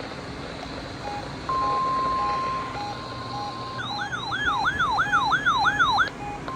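Weather radio receivers sounding their alert tones: a steady electronic tone comes in about a second and a half in, then gives way to a siren-like wail that sweeps up and down about seven times in two seconds and cuts off suddenly. A faint short beep repeats about twice a second underneath.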